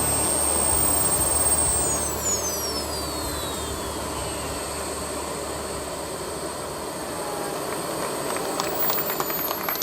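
Radio-controlled model jet's turbine engines whining as the jet flies past: a high whistle falls in pitch about two seconds in, and a second falling whistle comes near the end, over a steady rushing noise. A few faint clicks come near the end.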